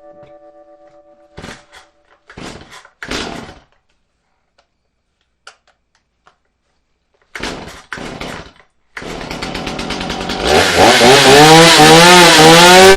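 Two-stroke chainsaw being pull-started: a few short pulls on the starter cord, then the engine catches about nine seconds in and is revved hard, its pitch rising and falling, freshly sharpened chain ready for testing.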